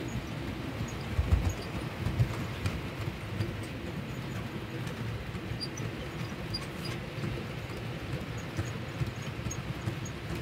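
OO gauge model Class 60 diesel locomotive and its rake of scrap wagons running past on the track: a steady rumble of wheels and motor with light scattered clicks from the rail joints, loudest a second or two in as the locomotive passes.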